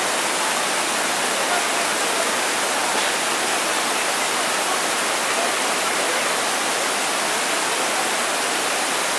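Shallow canyon river rushing over and between boulders in rocky rapids: a steady, even rush of water.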